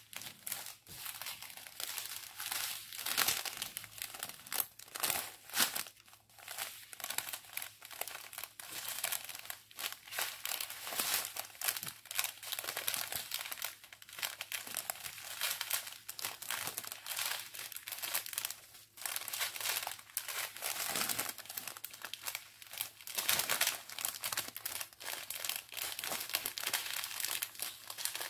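Plastic crinkling and rustling with many sharp crackles: strips of small sealed plastic bags of round diamond-painting drills being handled and unfolded.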